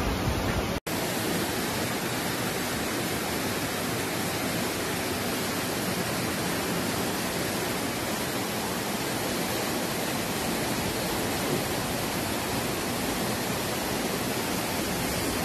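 Floodwater rushing down a street in a torrent: a steady, even rush of water. Under a second in, a brief stretch of louder, deeper storm wind and rain cuts off sharply.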